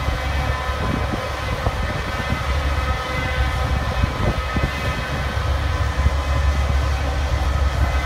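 A large engine running steadily: a deep, constant drone with a steady whine above it.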